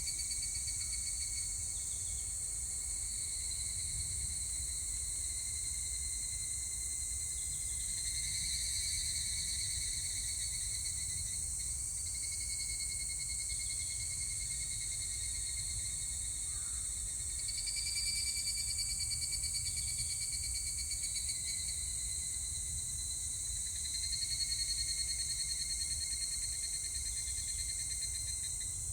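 Higurashi (evening cicadas) singing: pitched, trilling phrases several seconds long that start and fade one after another, overlapping at times, over a steady high insect hiss and a low rumble.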